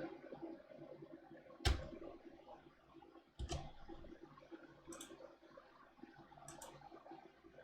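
A handful of separate, sharp computer clicks, spaced a second or more apart, the loudest one early on over a faint room hush.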